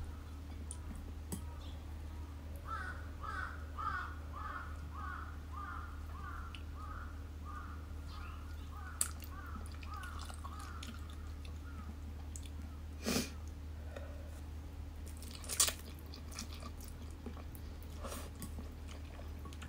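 Chewing and a few short slurps of spicy instant noodles eaten with chopsticks, over a steady low hum. For several seconds early on, a bird calls over and over, about two calls a second.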